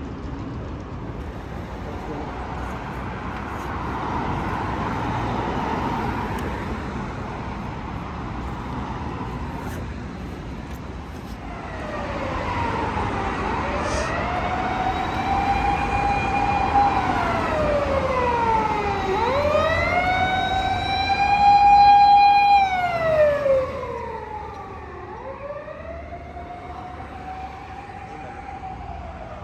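Street traffic hum, then an emergency vehicle's wailing siren comes in about halfway through. It rises, holds and falls in slow sweeps several seconds long, is loudest about three-quarters of the way through, and then grows fainter.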